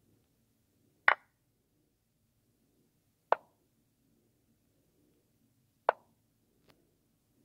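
Chess-move sound effects from the lichess site: three short, sharp wooden clicks about two seconds apart, one for each move played, and a faint tick near the end.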